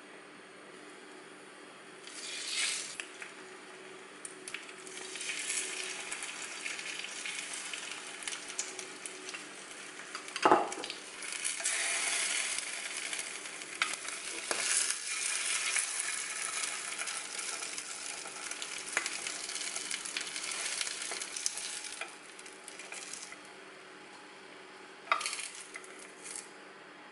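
Food sizzling in oil in a rectangular nonstick frying pan, with light clicks of chopsticks against the pan as the pieces are turned and lifted out. A sharp knock about ten seconds in; the sizzle dies down a few seconds before the end.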